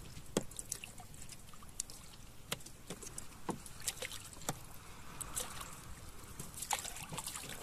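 Scattered light knocks and clicks against the side of a small boat, with faint water trickling and splashing, as a hooked nipa-nipa sea snake is hauled up along the hull.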